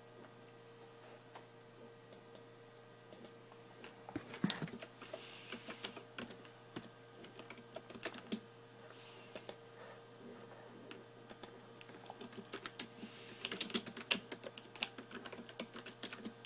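Scattered short clicks and taps, bunching into quick runs about four seconds in and again about thirteen seconds in, over a steady low hum.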